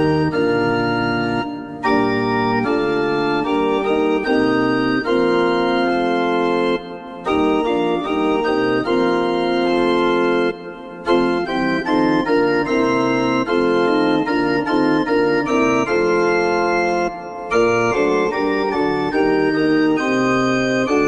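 Organ music: slow, sustained chords held for a second or more each, with a few short breaks between phrases.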